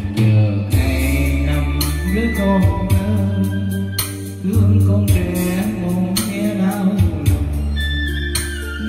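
Karaoke: a man singing into a handheld microphone over a backing track with a steady bass and drum beat, played through an amplified speaker system.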